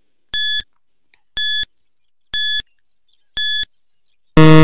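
Quiz countdown timer sound effect: four short high-pitched beeps, one a second, then a loud low buzzer near the end as the count reaches zero, signalling time up.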